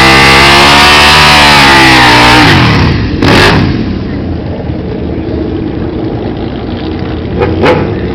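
Sport motorcycle engine at full throttle on a quarter-mile drag run, its pitch arching up and easing over the first two and a half seconds before the throttle closes. It then runs lower and quieter, with a short noisy burst about a second later and another near the end.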